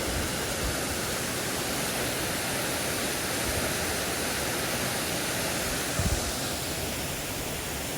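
Waterfall falling into its pool: a steady, even rush of water noise. A brief low thump comes about six seconds in.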